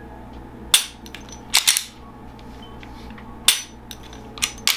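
Handgun being dry-fired: a sharp click of the trigger breaking, then a quicker burst of clacks from working the slide, twice over.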